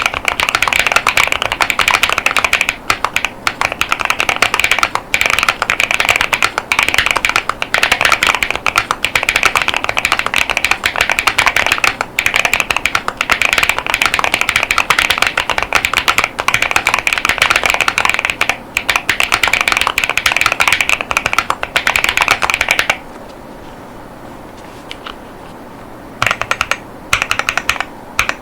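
Mechanical keyboard with Wuque Studio Light Tactile 35gf switches and PBT Cherry-profile keycaps being typed on quickly and continuously. The typing stops about 23 seconds in for a few seconds, then a few more keystrokes come near the end.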